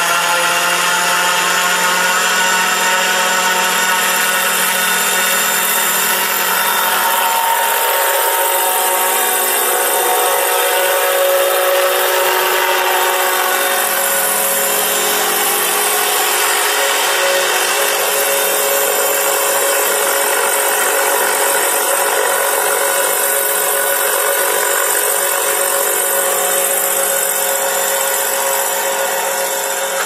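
Large radio-controlled scale helicopter running with a whine made of many tones. The pitch rises over the first couple of seconds as the rotor spools up, then holds fairly steady while it flies.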